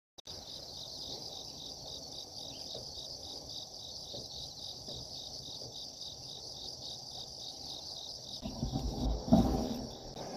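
Insects chirping: a steady, high-pitched, evenly pulsing trill. A low rumble joins near the end.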